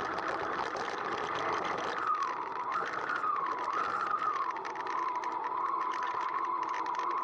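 Motorcycle engine running under way, its pitch rising and falling a few times and then holding steady.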